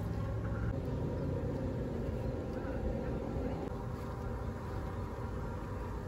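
Steady low outdoor rumble with a faint hum, no distinct events.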